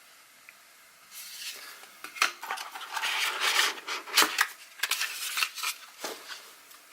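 Rustling and clattering of packaging and hard plastic thermostat parts being handled, with a few sharp clicks and taps, starting about a second in.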